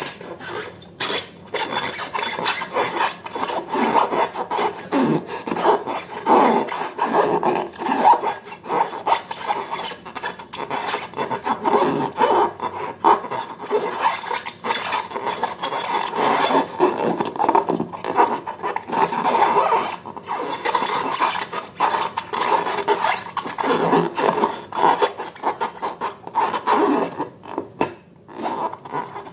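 Slime being squeezed and kneaded by hand: a continuous sticky crackling full of small pops and clicks.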